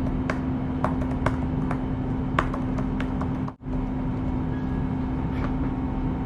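A handful of light clicks and taps, as of small objects being handled, over a steady background hum with a low constant tone. The sound drops out for a moment about three and a half seconds in.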